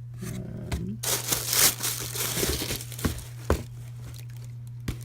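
Shoe packaging crinkling and rustling as a new pair of shoes is handled and pulled out, loudest in the first half, with a few sharp clicks later on. A steady low hum runs underneath.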